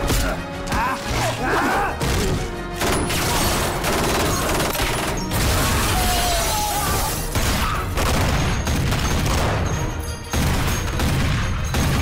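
Action-film soundtrack: repeated gunshots and crashing impacts over a score.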